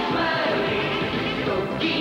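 Television commercial jingle: music with singing.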